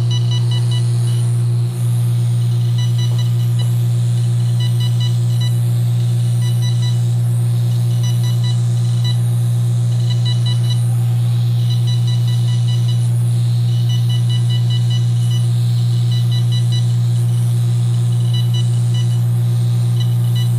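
FRAX 1940 fractional laser handpiece firing as it is rolled over the skin: runs of short, rapid high beeps repeat again and again over a loud, steady low hum.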